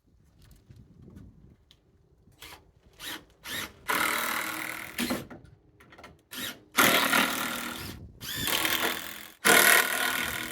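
Power drill driving into framing lumber: a few short trigger blips, then four runs of about a second each in the second half.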